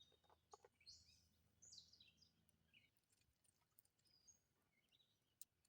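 Near silence, with faint bird chirps in the first half and a few light ticks.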